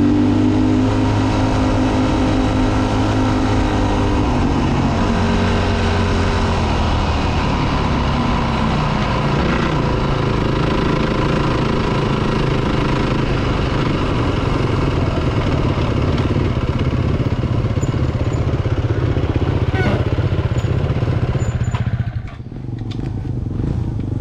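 Four-stroke dirt bike engine running as the bike is ridden along a gravel road, with wind and tyre noise. The engine note falls a few seconds in as the throttle eases. Near the end the road noise drops away as the bike slows and stops, leaving the engine idling.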